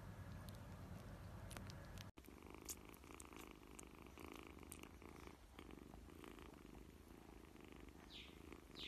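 Young kittens purring faintly, with a brief break in the sound about two seconds in.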